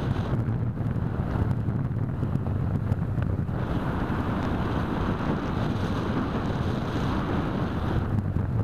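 Steady rush of airflow buffeting the microphone of a keychain camera on an EasyStar 2 foam RC plane in flight. The hiss grows brighter for a few seconds in the middle, then eases near the end.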